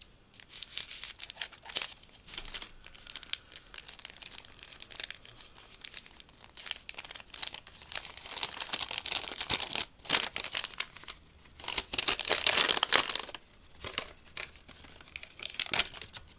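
A small wrapped package being crinkled and torn open by hand: irregular bursts of crinkling and tearing, with the longest, loudest stretch about three-quarters of the way through.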